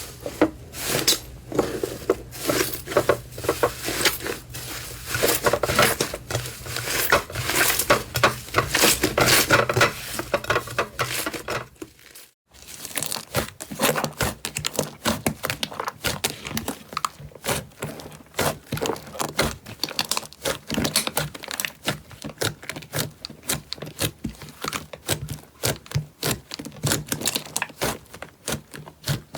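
Slime being squeezed and pressed by hand, giving dense, rapid crackling and popping, with a brief silent break about twelve seconds in before more of the same crackling.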